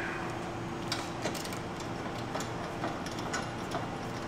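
Faint, scattered metallic ticks, about one or two a second, from a socket wrench and bolt hardware as the bolts on a motorcycle's chrome seat strap bracket are loosened, over a steady low hum.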